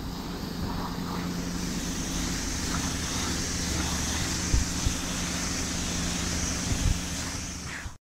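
Pressure-washer wand jetting water onto a van's side: a steady hiss over a low hum, with two brief thumps about four and a half and seven seconds in. It cuts off suddenly near the end.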